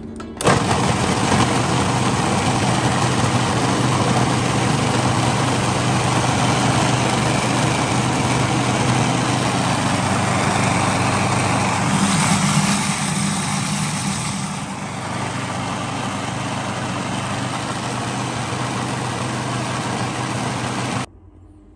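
Electric food processor running, blending onions, herbs, garlic, lemon, spices and olive oil into a marinade: a steady motor hum under loud chopping noise. It starts about half a second in, gets briefly louder and brighter past the middle, then runs a little quieter until the motor stops suddenly near the end.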